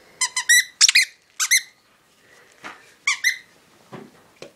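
Dog's rubber squeaky toy squeaking as it is pressed under a pillow: a quick run of short, high squeaks in the first second and a half, then a pair more about three seconds in.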